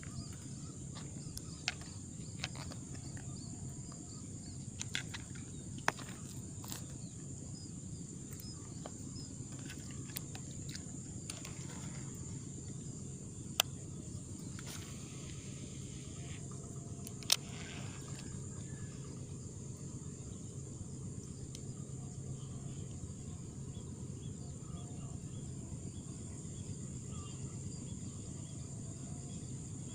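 Steady outdoor insect drone, high-pitched and unbroken, over a low background hum. Now and then there is a sharp click or tick, with two louder ones about halfway through.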